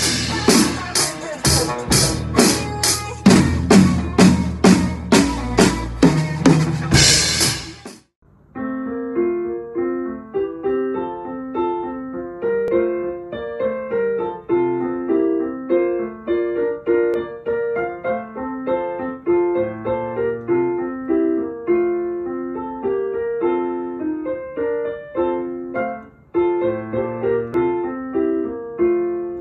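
An acoustic drum kit played in a steady beat with cymbals, cutting off abruptly about eight seconds in. A solo piano piece follows and runs to the end, with a brief pause near the end.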